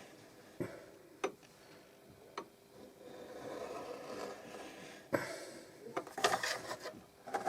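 Leather being cut out along a marked line: a few sharp clicks, then rasping cutting strokes through the leather that grow louder from about five seconds in.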